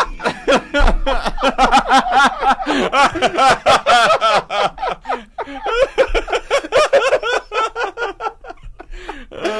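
Several people laughing, in quick choppy bursts of chuckling and snickering.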